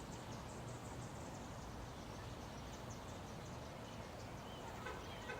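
Steady outdoor background noise with faint, rapid high-pitched chirping through most of it, and a few short, faint bird chirps near the end.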